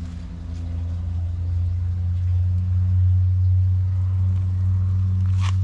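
An engine running close by: a low, steady hum that grows louder over the first second or two and then holds.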